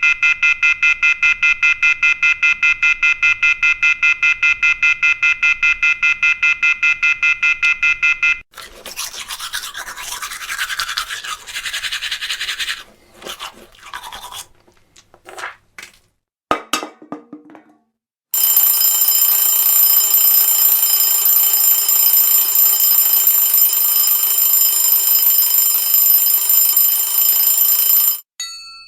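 Computer-generated electronic sound effects, not a real animal: a rapidly pulsing buzz, then from about eight seconds in several stretches of broken hiss. After a brief gap a steady, high-pitched buzzing tone starts and runs until it cuts off just before the end.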